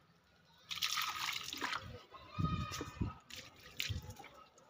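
Water poured from a plastic mug onto the soil of potted plants, splashing and trickling, with a few low knocks in the second half.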